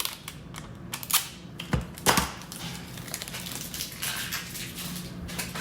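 Cardboard boxes being handled: a string of irregular taps, scrapes and rustles, with a couple of louder knocks about two seconds in.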